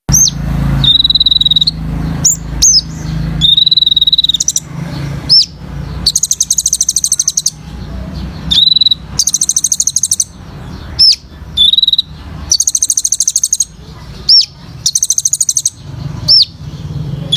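A kolibri ninja sunbird singing a loud, high-pitched song of 'tembakan' (shooting) phrases. Level whistled notes alternate with rapid trilled rattles of many notes a second and short, sharp falling chips, repeated over and over. A steady low hum runs underneath.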